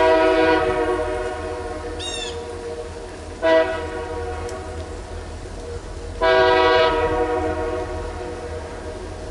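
Diesel locomotive air horn sounding three blasts: one that ends about half a second in, a short one about three and a half seconds in, and a longer one a little after six seconds, over a steady low rumble. A brief high chirp about two seconds in.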